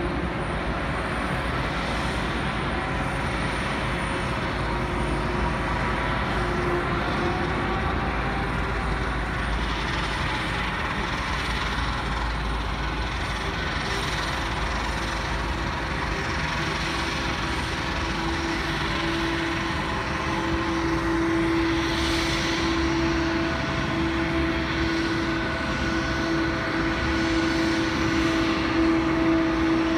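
Jet airliner's engines running steadily, a rushing noise with a held whine, getting a little louder about two-thirds of the way in.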